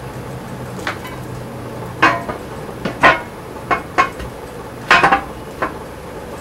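Cast iron tractor wheel centre clanking and clinking against a steel rim as it is set down and shifted into place, about eight sharp metal knocks at irregular intervals, the loudest around three and five seconds in.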